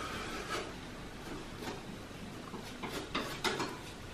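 Paintbrush applying contact cement along the edge of an MDF shelf: quiet brushing with a few light clicks and knocks, three of them close together near the end.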